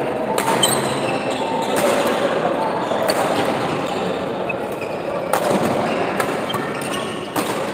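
Badminton rally: rackets striking the shuttlecock about five times, one to two seconds apart, over a steady murmur of spectators.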